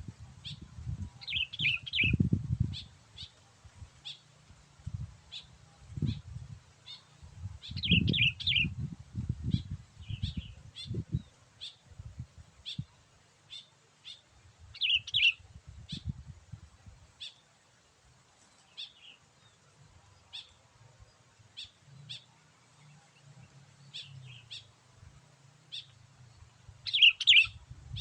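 Sooty-headed bulbul (kutilang) calling: short sharp chirps repeated throughout, broken every few seconds by quick bubbly phrases, the loudest coming near the end. Intermittent low rumbling runs underneath.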